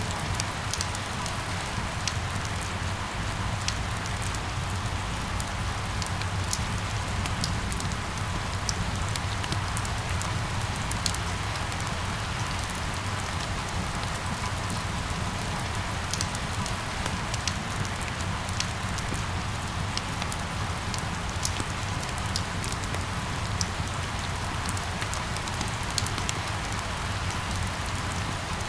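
Steady rain falling, a constant hiss with many small drops ticking sharply on a hard surface, over a low steady rumble.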